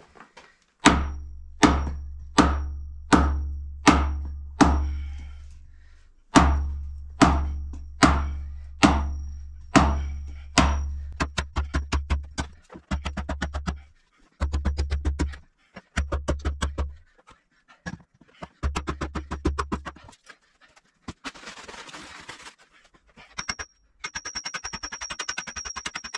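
Heavy blows driving a steel sand point well pipe into the ground, about one and a third strikes a second in two runs of six, each ringing through the pipe. About halfway through they give way to quicker, lighter knocking.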